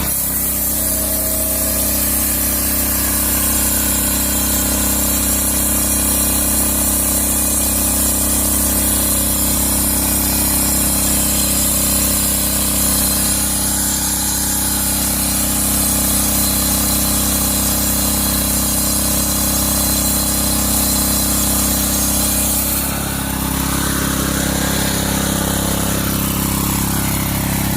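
Small engine-powered portable circular sawmill running steadily as it saws a slab off a squared log. About 23 seconds in the engine note shifts, and a rising whine follows.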